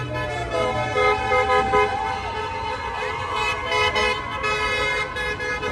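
Several car horns honking at once in long, overlapping blasts of different pitches, the celebratory honking of street traffic, with a few short rising-and-falling calls among them.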